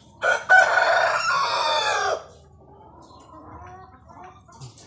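A rooster crowing once, loud and about two seconds long, followed by softer clucking.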